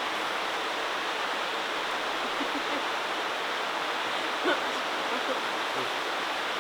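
Steady rush of flowing stream water, with a faint knock about four and a half seconds in.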